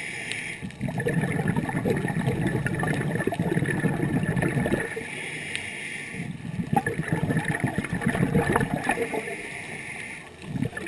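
Scuba diver breathing through a regulator, heard underwater: two long rushes of bubbling, gurgling exhaled bubbles, with quieter hissing inhalations between them and a short burst of bubbles near the end.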